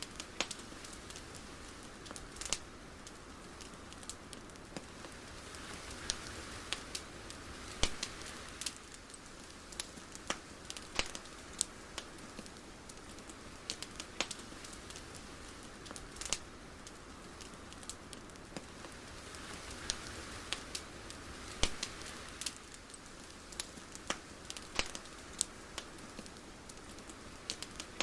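Sparse, irregular crackles and pops over a soft steady hiss, with a gentle swelling wash that comes and goes twice.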